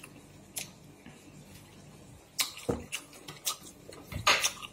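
Light clicks and knocks of tableware and food containers being handled on a table, starting about halfway through, with a louder brief rustle or scrape near the end.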